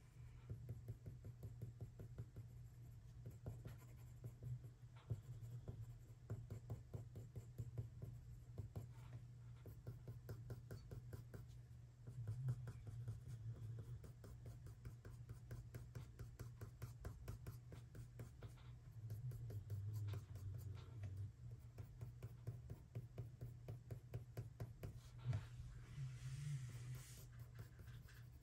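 Colored pencil stroking on Fabriano Artistico watercolor paper, faint, in quick short strokes repeated many times, with a longer, harsher scrape near the end.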